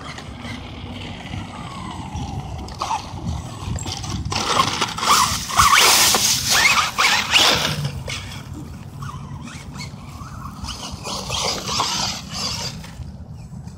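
Integy i10T two-wheel-drive RC monster truck on a 3S LiPo driving off-road, its 2700 kV electric motor whining as the throttle comes and goes and its tyres scraping through dry leaves and grass. It is loudest about four to eight seconds in, as the truck runs close by.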